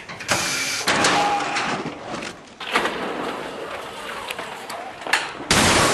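Noisy bursts and rushing as a car is hurled through the air, then a loud crash begins near the end as it comes down.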